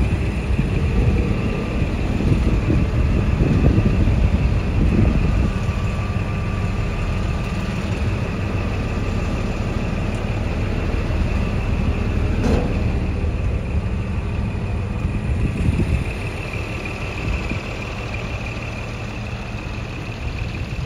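Scania G420 hook-lift truck's 12-litre straight-six diesel idling steadily, with a short click about twelve seconds in.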